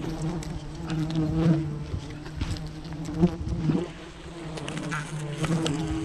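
A swarm of wild honeybees buzzing around their nest: a steady drone that swells and fades as bees fly close by.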